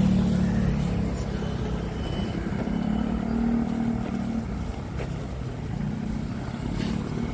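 Road traffic: engines of passing vehicles, their hum swelling and fading over steady road noise.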